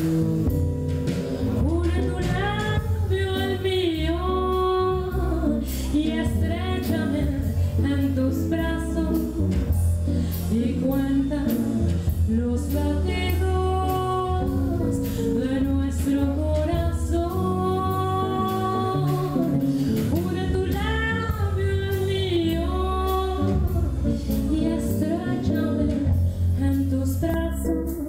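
A woman singing a slow melody with held, wavering notes, backed by a live band of electric guitar, bass guitar and drum kit with cymbals.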